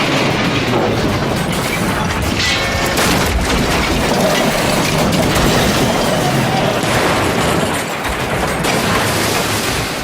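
Dubbed-in train-wreck sound effect: a long, loud, continuous crash of rumbling and clattering wreckage with explosion-like booms, easing off near the end.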